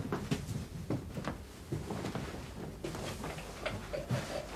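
Scattered light knocks and scrapes of wooden chairs and furniture as people sit down at a table.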